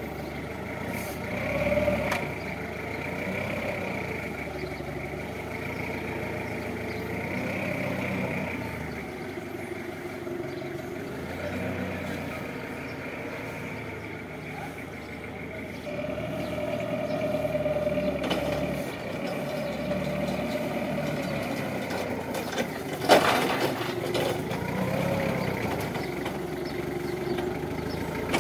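Linde forklift engine running, its pitch rising and falling as the truck lifts, carries and manoeuvres a pallet load, with a steady high whine over it. One sharp knock late on.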